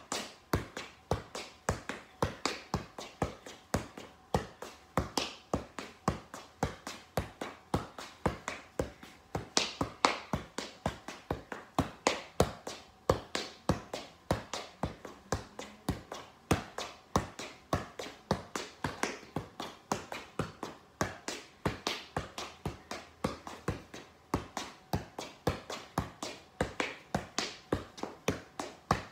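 A soccer ball being juggled: a steady run of hollow taps as it is kicked off the feet and thighs, about two to three touches a second, echoing in a garage.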